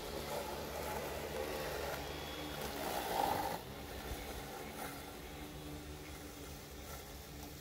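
Small electric motors of a remote-controlled lawn mower built on a Danchee Ridgerock crawler running as it drives across the grass. It is loudest about three seconds in as it passes close, then drops to a steadier, quieter run as it moves away.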